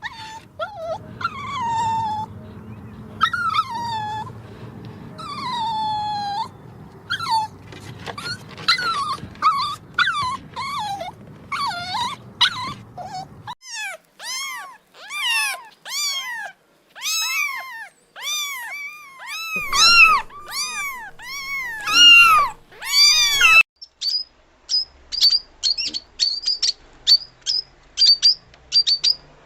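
A sequence of animal cries: drawn-out calls falling in pitch, then quicker arched cries, and in the last five seconds a fast run of short, high chirps.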